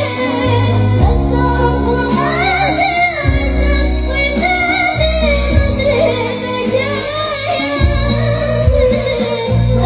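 A woman singing a melody with wavering, gliding notes over music with long, held bass notes.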